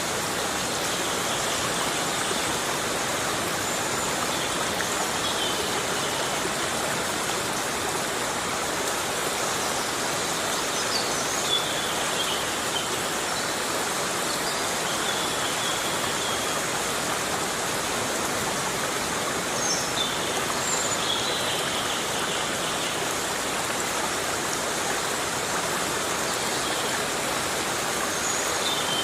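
Heavy rain falling steadily on a tropical forest, a constant even hiss, with a few faint short high chirps here and there.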